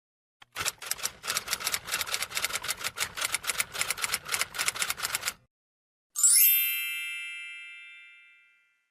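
Typewriter sound effect: rapid clacking keystrokes for about five seconds, then a pause and a single bell ding that slowly fades away.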